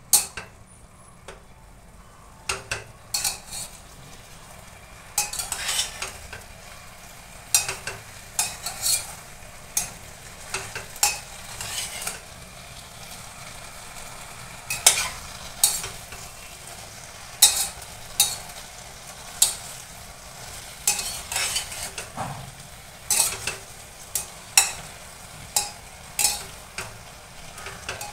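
Metal spatula and fork scraping and clinking against the side of a metal pressure-cooker pot as bottle gourd and peas are stirred. The strokes come at irregular intervals, over a steady faint sizzle from the frying vegetables.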